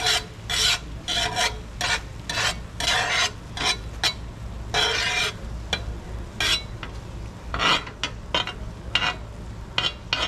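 Metal spatula scraping and pushing beaten egg across a hot stovetop griddle plate in a string of irregular strokes, with a longer scrape about five seconds in and quicker short ones near the end, the egg sizzling underneath.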